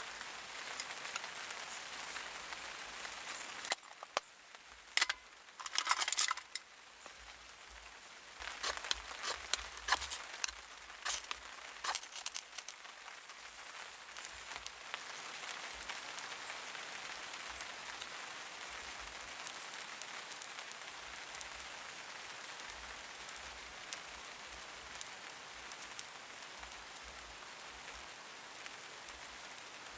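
Small wood fire in a Picogrill portable fire pit crackling, with a run of sharp pops and crackles in the first half and a steady soft hiss after.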